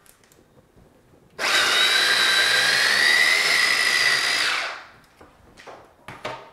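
Moulinex electric mini chopper running for about three seconds, blending chickpeas, beetroot and tahini into hummus, then winding down as the top is released. A few light clicks and knocks near the end as the chopper is taken apart.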